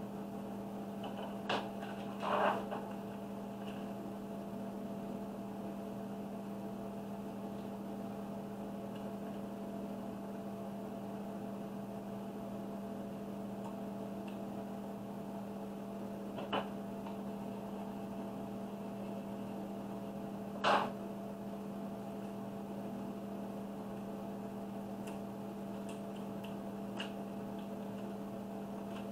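A steady low electrical hum, with a handful of brief handling sounds from the stenciled tumbler being turned and pressed in gloved hands, the loudest about two-thirds of the way through.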